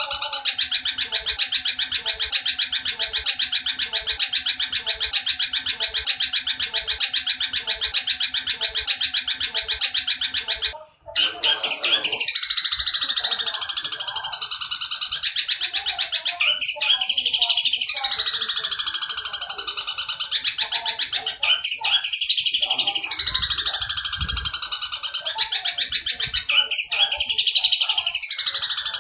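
Long-tailed shrike giving the fast, harsh rattling chatter it copies from the Oriental dollarbird. It starts as one long unbroken rattle, then after a brief break about eleven seconds in, comes as repeated phrases of a few seconds that each fall in pitch.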